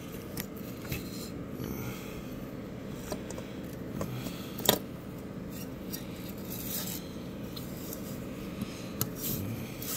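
Handling noise from small plastic parts and the camera being moved: scattered light rubbing and small clicks over a low steady hum, with one sharp click about halfway and a few more near the end.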